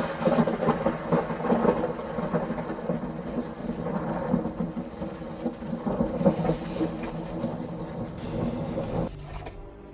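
Rumbling, crackling thunder-and-rain sound with a steady low drone beneath it. The storm noise falls away about nine seconds in, leaving the drone.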